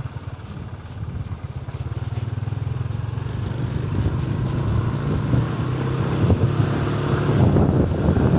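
Motorcycle engine running steadily while riding, growing louder a couple of seconds in, with wind rushing over the microphone.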